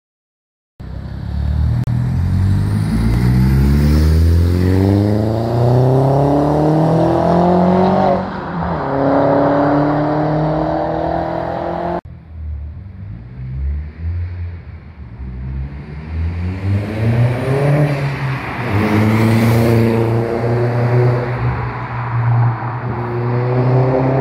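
Seat Leon Cupra R's turbocharged 1.8-litre four-cylinder, breathing through a 3-inch non-resonated straight-through Cobra turbo-back exhaust, accelerating hard past. The revs climb, dip at a gear change, then climb again. A second hard acceleration pass follows after a cut about halfway through.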